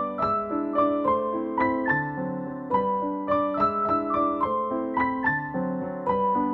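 Background piano music: a gentle melody of about three notes a second over lower held notes.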